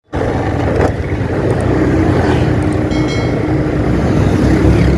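Motorcycle riding through town traffic: steady engine and road rumble, with a brief high-pitched tone about three seconds in.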